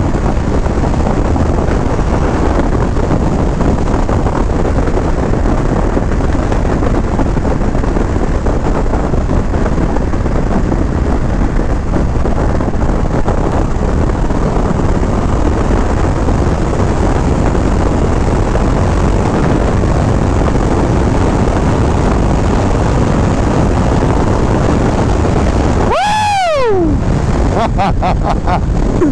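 Wind rush and the 2025 Indian Scout 101's 1250 cc V-twin engine running hard at highway speed. Near the end the wind noise thins and the engine note falls sharply.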